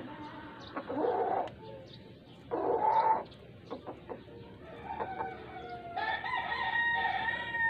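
Rooster crowing: two short calls about one and three seconds in, then a longer crow near the end.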